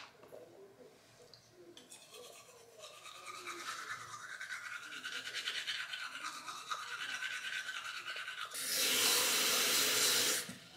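Toothbrush scrubbing teeth in quick strokes. Near the end a mixer tap is turned on and water runs into a cup, louder than the brushing, then the tap is shut off.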